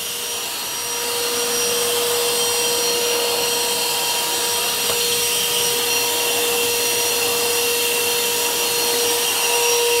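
Gaocheng GC-VC25L wet and dry vacuum cleaner running at full power, a steady whine, as its rubber squeegee nozzle sucks water off a tiled floor.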